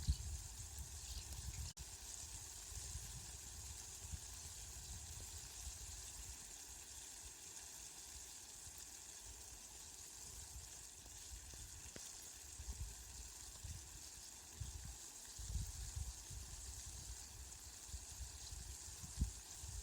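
Steady rain falling, an even hiss, with a low rumble underneath that swells and fades, strongest near the start and again in the second half.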